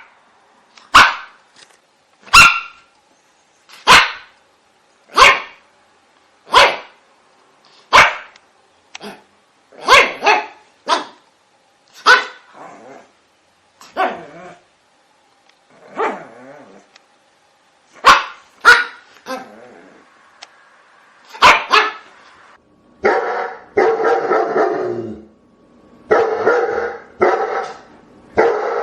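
Dogs barking loudly: single sharp barks spaced a second or so apart, turning near the end into rapid, almost continuous barking.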